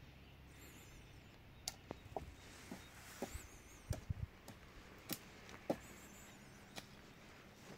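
Hand digging tool knocking and scraping in stony soil, irregular sharp strikes a few times a second, with faint birdsong.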